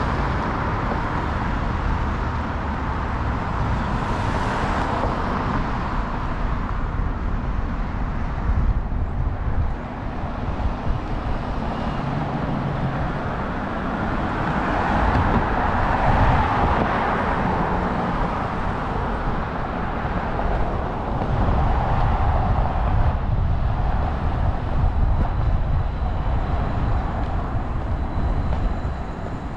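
Street traffic on a city avenue: cars passing one after another in a steady stream of tyre and engine noise, swelling louder as vehicles go by, most of all about halfway through and again later on.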